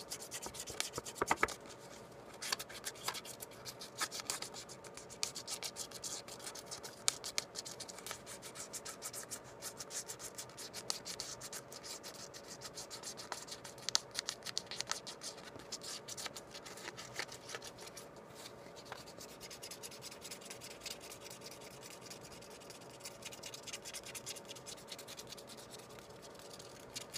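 A scratch-off game card being scratched off: a long run of quick, dry scraping strokes, rubbing away the coating.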